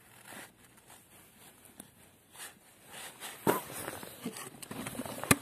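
Scattered rustling and knocking of the camera being handled and moved, with louder knocks past the middle and a single sharp click near the end.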